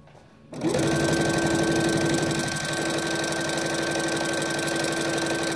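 Electric sewing machine starting up about half a second in, its motor whine rising briefly to speed, then running steadily as it stitches a side seam through cotton fabric.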